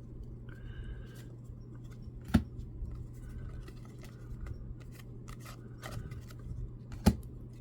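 Baseball card pack being opened and its cards handled: light rustles and small clicks, with two sharper clicks, one about two seconds in and one near the end. A steady low hum runs underneath.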